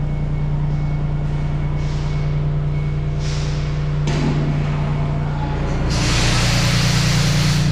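Heavy machinery running with a steady low hum, broken by short bursts of hissing. A long, loud hiss starts about six seconds in.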